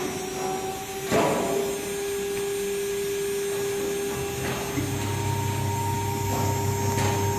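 Water-cooled 3 kW spindle of a CNC router whining at a steady pitch as its bit cuts a groove in an MDF board, with short louder bursts of cutting noise, the strongest about a second in. A low hum joins from about five seconds in.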